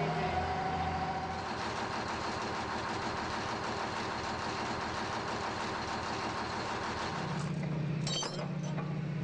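Heavy construction machinery engine running steadily with a low hum, with a few sharp metallic clinks about eight seconds in.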